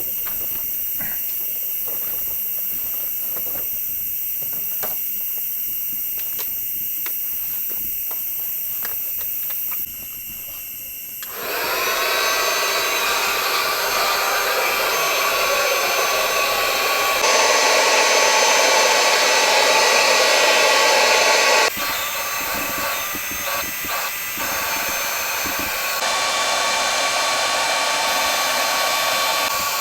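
Electric air pump inflating an inflatable boat: a steady motor whine with a rush of air, starting a little over a third of the way in and continuing in several abruptly cut stretches. Before it, a steady high hiss with scattered light clicks.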